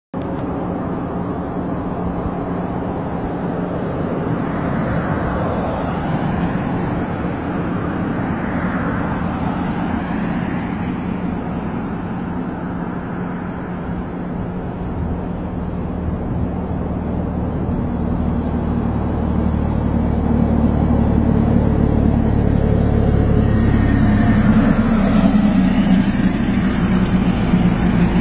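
Road traffic: vehicle engines running steadily, with passing vehicles swelling and fading, and a heavier low rumble building and growing louder from about halfway through.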